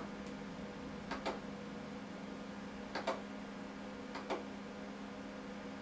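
Button clicks on a CEREC acquisition unit's trackball as the crown margin is traced on screen: about six short clicks, some in quick double-click pairs, a second or two apart. Under them runs a steady electrical hum from the unit.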